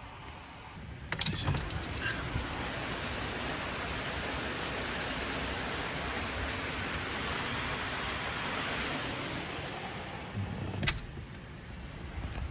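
Heavy thunderstorm downpour, a steady hiss of rain. It turns suddenly louder after a sharp click about a second in and falls back after another sharp knock near the end.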